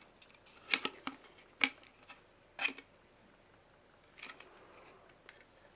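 Hinged clear plastic compact case being handled and opened: several sharp plastic clicks and taps, spaced irregularly, loudest in the first three seconds.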